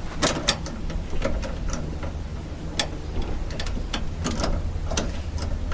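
Irregular clicks and light taps of plastic and metal parts being worked into a van door's latch and handle mechanism, over a steady low hum.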